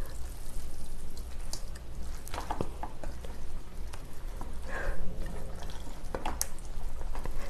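Noodles being mixed with chopsticks through thick spicy sauce in a stainless steel bowl: wet squishing with scattered light clicks of the chopsticks against the bowl.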